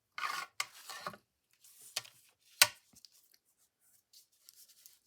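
Scrapbook paper being handled and creased on a work table: rustling in the first second, a few sharp taps with the loudest about two and a half seconds in, then faint light rustles.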